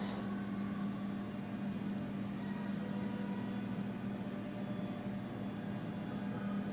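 DMG DMF 300 Linear vertical machining centre powered up and running, giving a steady electrical and mechanical hum with a faint hiss and a few faint high whines above it.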